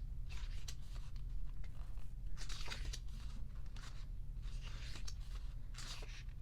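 Pages of a small photo book being turned by hand, paper rustling in about three short bursts.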